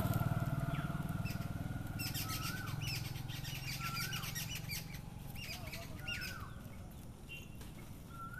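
A bird calling over and over: a short note that rises and then drops sharply, repeated about every second and a half. Under it a low hum, loudest at the start, fades away, and scattered quick clicks come and go.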